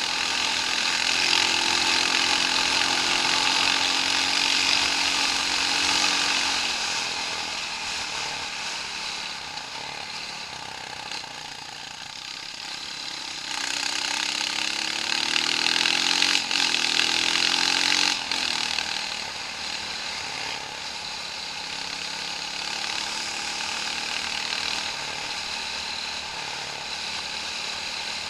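Off-road vehicle engine working hard, holding a steady pitch for several seconds, then revving up repeatedly in quick climbs around the middle, where it is loudest. A steady rushing noise runs underneath.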